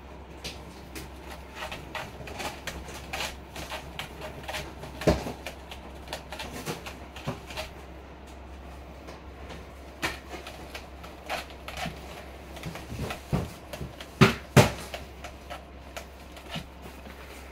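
A cat's claws scratching and picking at a sisal-rope scratching post: irregular rasping scrapes and clicks, with a few sharper knocks, the loudest two in quick succession near the end.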